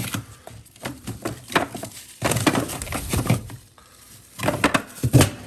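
Plastic-bagged frozen food being rummaged through in a freezer: irregular crinkling of plastic with knocks of hard frozen packs against each other.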